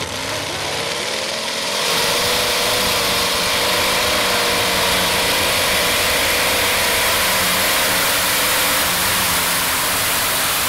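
Supercharged modified pulling tractor engine launching off the line, its pitch rising over the first two seconds. Then, about two seconds in, it gets much louder and runs steadily at full throttle as the tractor drags the sled.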